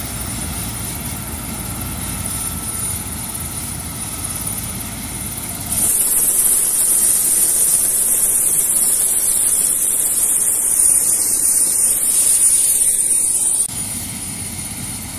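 Turbine helicopter running on the ground: a steady engine and rotor rush with a thin high whine. From about six seconds in until near the end the sound turns louder and hissier and the low rumble drops away, then returns.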